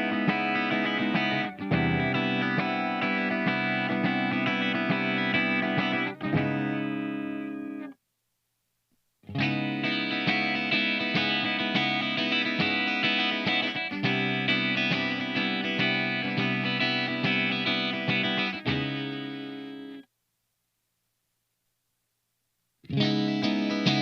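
SLX Hawk Classic 22 HSS electric guitar with Alnico V pickups played through distortion, strumming chords. Twice a chord is left to ring out and dies away into a silent gap of a couple of seconds before the playing starts again.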